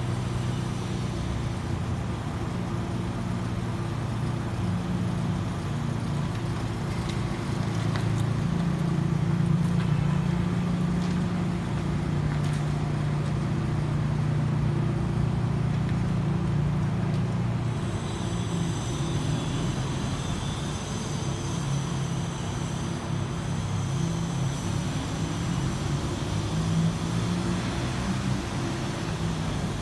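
Car engine running steadily, a low hum that swells slightly around ten seconds in. A faint high-pitched sound joins from about eighteen seconds in.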